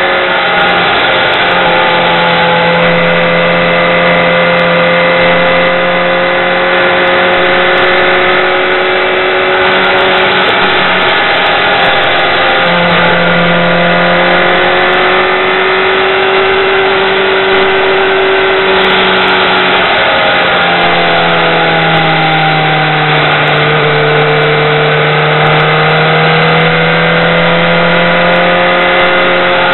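BMW K1200R motorcycle's inline four-cylinder engine running at road speed, heard from a helmet camera over a steady rush of noise. The engine pitch drifts, and twice dips and climbs again as the throttle and speed change through the bends.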